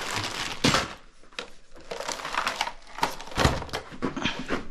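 Old papers rustling and crinkling as they are handled and leafed through, in irregular bursts, with louder ones just under a second in and a little past the middle.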